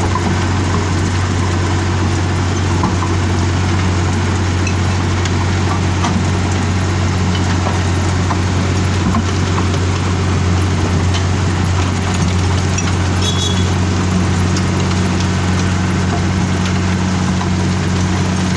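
Wirtgen W 1000 cold milling machine running steadily while milling off asphalt: a constant low diesel engine drone over a rough, even noise.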